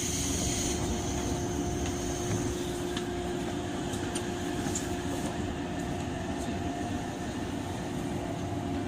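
Inside a 103-series electric train car: a steady hum over a constant rumble, with a high hiss of air that stops under a second in and a few faint clicks.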